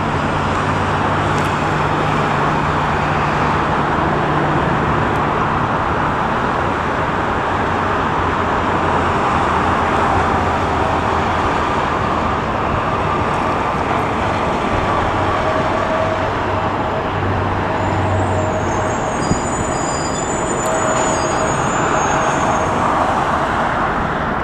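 Steady, even roar of road traffic and airport ground noise. A faint steady whine joins about halfway through, and faint high chirps come near the end.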